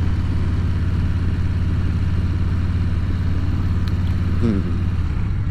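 Motorcycle engine running steadily under way, a loud low drone picked up by a helmet-mounted microphone, with a tripod rattling around in a saddlebag.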